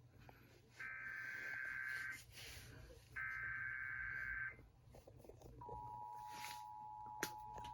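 Emergency Alert System tones: two bursts of SAME header data tones, each just over a second long with a gap of about a second between them, followed from about five and a half seconds in by the steady two-tone EAS attention signal. The tones are faint, with a brief click near the end.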